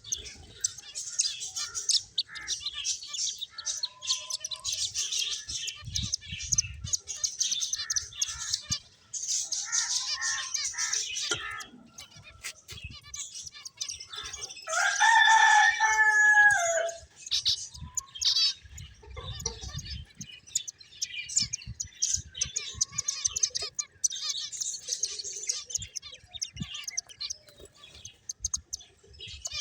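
Finches chirping in a steady, busy chatter of rapid high-pitched notes. About halfway through, one louder, lower drawn-out call lasts two or three seconds.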